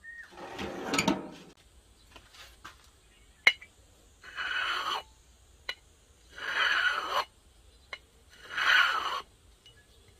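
A clatter about a second in, then a steel knife blade made from circular-saw steel scraped across a glass bottle in three strokes about two seconds apart, with a sharp tick as the edge meets the glass between strokes. The edge biting into the glass is a scratch test of the heat-treated blade's hardness.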